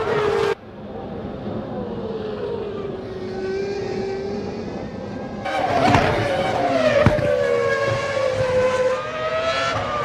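1998 Formula One cars' V10 engines at racing speed, their pitch rising and falling. The sound cuts off sharply about half a second in and gets louder again from about five and a half seconds in.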